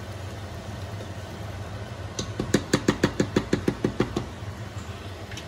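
A cooking spoon rapping against a pot about a dozen times in quick succession, about six a second, starting about two seconds in and lasting about two seconds, over a steady low hum.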